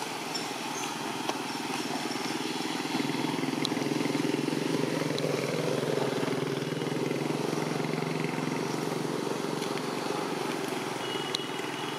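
A motor vehicle engine running steadily at a distance, growing louder through the middle and easing off again, like a vehicle passing by.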